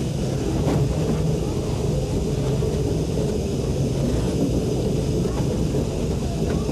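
Vintage electric trolley car rolling along the track: a steady low rumble with a faint constant hum and a few light clicks.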